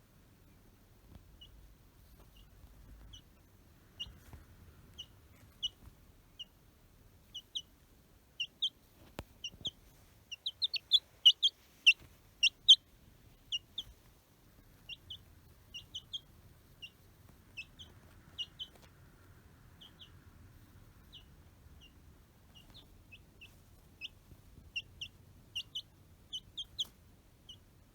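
Baby chicks peeping: short, high, downward-sliding peeps at irregular intervals, coming thickest and loudest for a few seconds in the middle.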